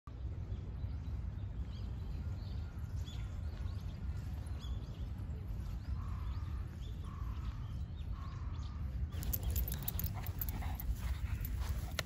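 Small birds chirping over a steady low rumble, with three short calls about a second apart around the middle. A little after nine seconds this gives way to the quick patter and rustle of a Shih Tzu's paws on grass.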